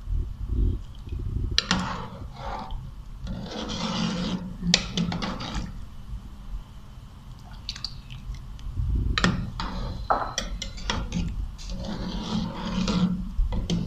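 Metal spoon stirring a pot of thin chicken nihari gravy as a flour slurry is poured in to thicken it: irregular scraping and clinks of the spoon against the metal pot, with the liquid sloshing.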